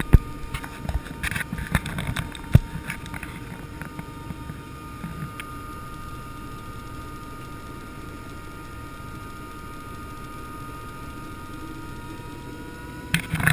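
Helicopter engine and rotor running, heard from inside the cockpit: a steady whine over a low rumble, with a few knocks and clicks in the first few seconds and the whine rising slightly in pitch near the end.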